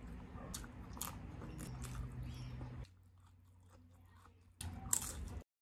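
Close-miked mukbang eating: chewing and biting a hotdog with small crunchy clicks, a quieter stretch, then a loud crunchy bite into an okra pod about five seconds in, after which the sound cuts off suddenly.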